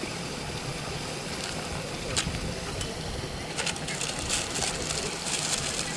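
Steady outdoor background noise, with a few short crackling rustles about two seconds in and a cluster of them from about three and a half to five and a half seconds in.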